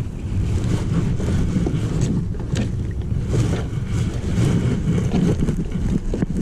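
Steady low rumble of wind and handling noise on a body-worn camera while paddling a plastic sit-on-top kayak, with a few short sharp paddle sounds about two to three and a half seconds in.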